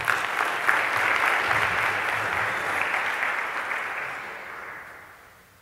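Audience applauding, swelling within the first second, holding steady, then dying away toward the end.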